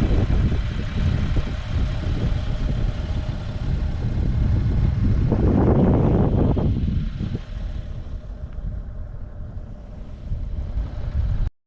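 Car driving: a steady low road rumble with wind noise, swelling into a louder rush about five to seven seconds in, then cutting off suddenly near the end.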